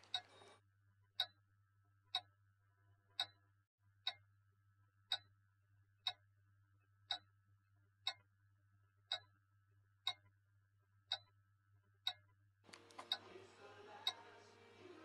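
A clock ticking steadily, one tick about every second, over a faint low hum. Near the end a layer of held tones comes in under the ticks.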